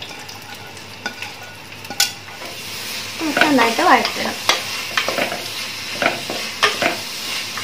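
Sliced onions sizzling as they fry in hot ghee in a clay pot while being stirred, the spoon clicking against the pot several times.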